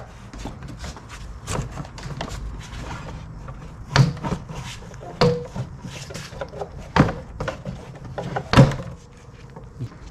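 Plastic air intake duct being worked loose from the throttle body and air filter box and lifted off: a series of plastic knocks and rubbing, with sharp knocks about four, seven and eight and a half seconds in.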